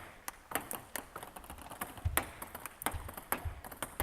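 Table tennis rally: the ball clicking quickly and unevenly off bats and table, several hits a second, with a few low thuds in the middle.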